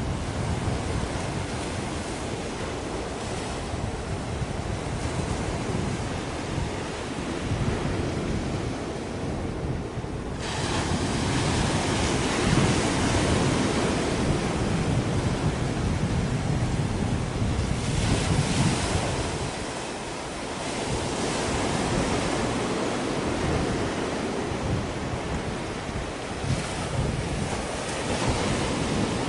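Wind buffeting the microphone in gusts over a steady rushing of wind and sea, with no engine or horn to be heard; the rushing turns brighter and louder about ten seconds in.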